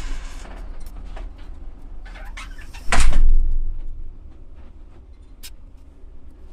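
A door being opened or shut, with one loud sudden noise about three seconds in, among smaller knocks and handling sounds.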